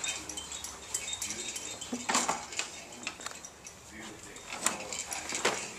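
Baby walker rolling, its plastic toy attachments clicking and rattling in a string of small sharp clinks.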